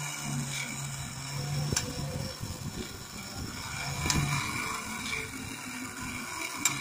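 Technofix tin-plate monorail toy running: its mechanism hums steadily while the small tin cars rattle along the tin track and the lifting arm carries them up. Sharp clicks come about two seconds in, about four seconds in and near the end, and the hum stops a little after four seconds in.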